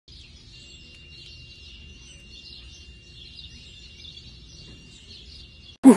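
Faint outdoor background with distant bird chirps and a steady high-pitched whine. A loud series of rising calls breaks in at the very end.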